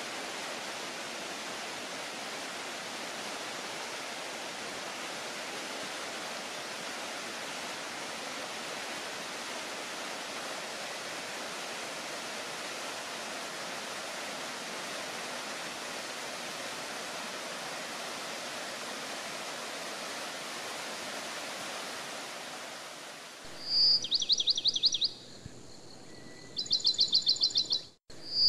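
Small waterfall cascading over mossy rock steps in a forest stream, a steady rush of water. About 23 seconds in it gives way to a bird singing loud, rapid high trills, twice with a short pause between.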